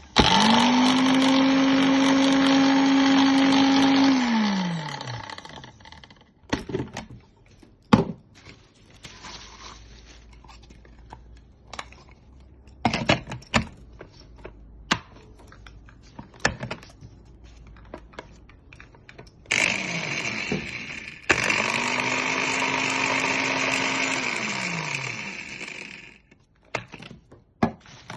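Philips HR2223 blender's motor running at a steady pitch for about four seconds, then slowing and fading after it is switched off. After some clicks and knocks of handling, it runs again for a few seconds and winds down the same way.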